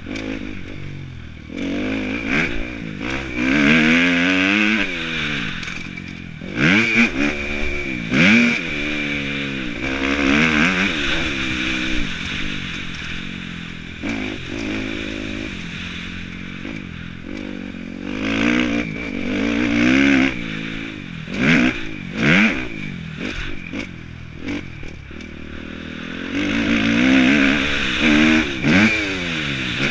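Dirt bike engine heard from the rider's helmet, revving up and dropping back again and again as it accelerates and shifts around the motocross track, with several louder surges.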